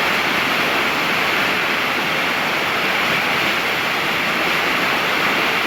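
Waterfall rushing steadily, an even wash of falling water with no change in level.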